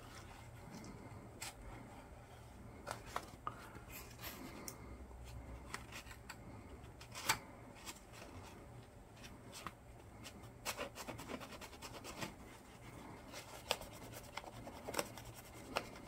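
Old thermal compound being scraped off a laptop's CPU cooler by hand: faint, irregular scratching with small sharp clicks of the tool against the metal.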